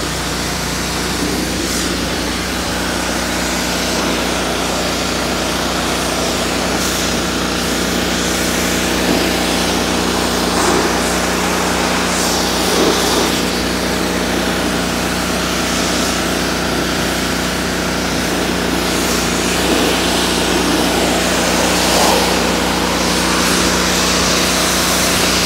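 Pressure washer running steadily with its small gas engine humming, while the spray wand blasts water onto a carpet, a hiss of spray that swells and fades as the jet moves.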